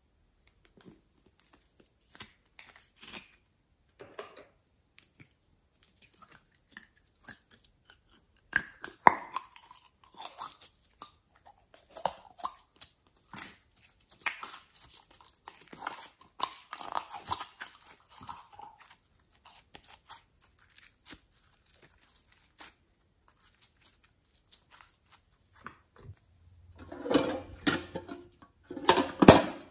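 Hands handling small plastic toys and containers: scattered clicks, taps and rustles, including a small plastic jar being opened. Near the end, a crab-shaped tin box is handled, with a denser run of rattling and scraping.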